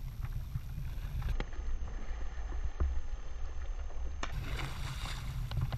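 Wind rumbling on the microphone over open water, with water lapping around a kayak. A brighter splashing hiss comes in for the last second and a half.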